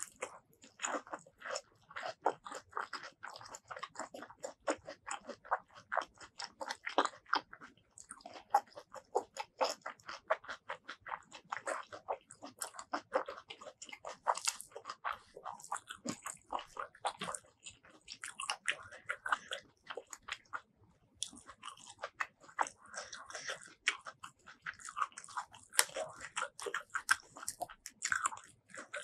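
Close-miked chewing of a mouthful of rice, curry and stink beans (petai): many small, irregular crisp crunches and wet mouth sounds, pausing briefly twice.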